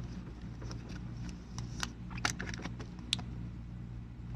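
Light, irregular clicks and soft plastic rustling as trading cards in plastic sleeves and a rigid top loader are handled, over a faint low hum.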